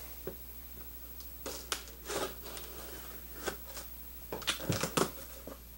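Cardboard shipping box being slit open along its taped seam and handled: scattered short scrapes and taps, with a louder cluster of scrapes and knocks near the end.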